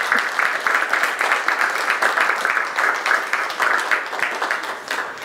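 Audience applauding: dense, steady clapping that starts to thin out near the end.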